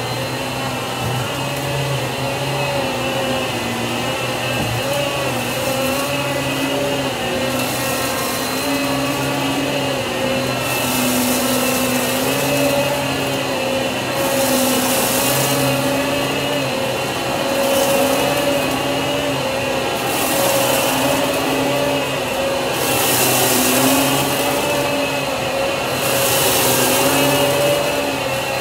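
Riccar Pizzazz canister vacuum running with its motorized brush nozzle on carpet, sucking up spilled rice. A steady motor hum, with a hiss of rushing air that swells every two to three seconds.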